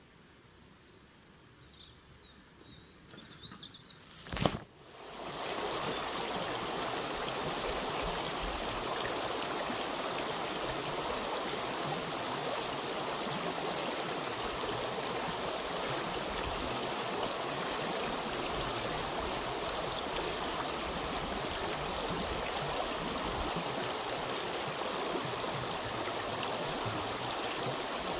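Near quiet with a few faint high squeaks, then a sharp click about four seconds in, after which stream water runs with a steady rushing sound.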